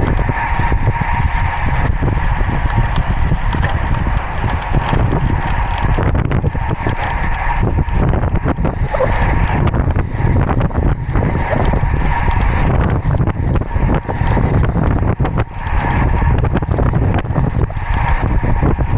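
Wind buffeting the action camera's microphone as a road bike descends at speed, a loud continuous rush with a gusty low rumble and tyre noise from the asphalt. A thin steady whine runs underneath.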